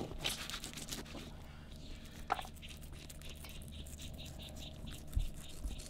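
Fillet knife scraping and cutting through a mangrove snapper, a run of quick rasping strokes over a steady low hum, with one short squeak a little past two seconds in.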